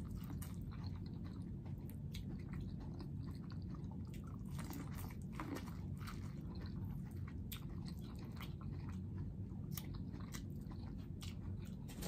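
A person biting kernels off corn on the cob and chewing: a run of short, faint, irregular crunches and mouth clicks.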